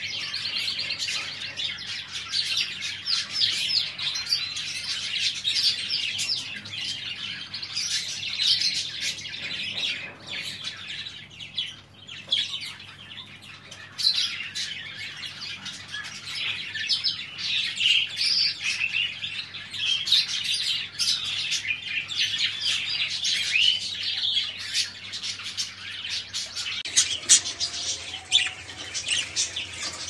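A group of budgerigars chattering noisily: a dense, continuous stream of short warbling chirps, with a brief lull a little before the middle.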